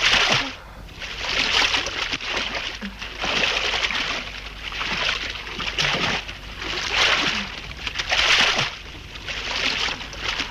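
A swimmer's arm strokes splashing through pool water. There is a splash about every one and a half to two seconds.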